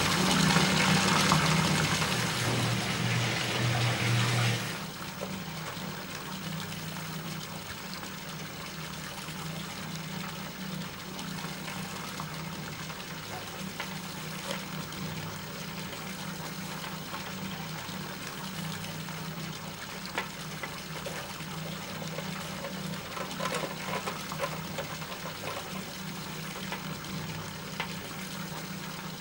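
Bath mixer tap running water into a tub, a loud rush that cuts off abruptly about five seconds in. A quieter steady hiss with a low hum follows.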